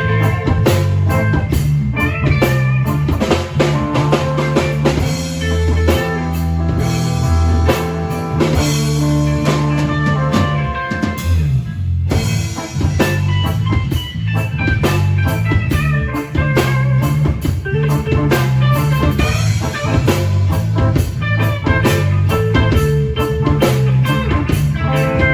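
A band playing without vocals: drum kit, guitar and a prominent bass line, with a brief break about twelve seconds in.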